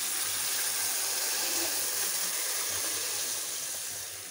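Spiced tamarind water poured into a hot pan of frying brinjals, hitting the hot oil with a steady hissing sizzle that eases off slightly near the end.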